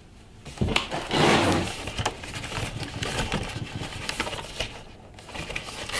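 Cardboard toilet-seat box being handled and opened: a knock about half a second in, then scraping and rustling of cardboard with scattered clicks.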